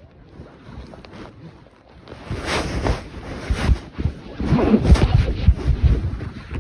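Low rumbling and buffeting on a phone microphone, quiet at first and swelling about two seconds in, with uneven thumps strongest in the second half.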